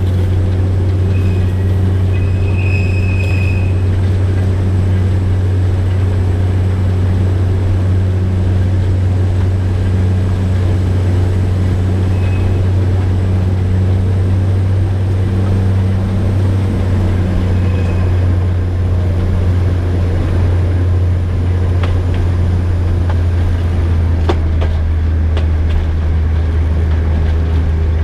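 DL-41 diesel locomotive running steadily under way, a constant low drone. There are a few short high squeals in the first few seconds, typical of flanges on a curve, and a few faint clicks near the end.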